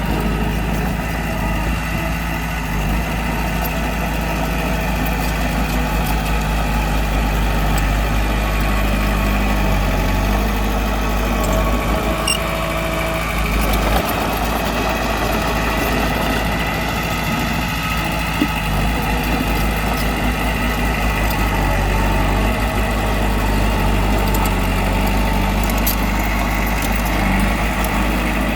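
Bulldozer's diesel engine running steadily at a constant speed.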